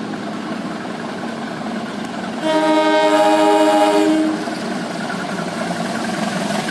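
Train horn sounding one blast of about two seconds, a multi-tone chord, starting a couple of seconds in. Under it is the steady low running of an engine.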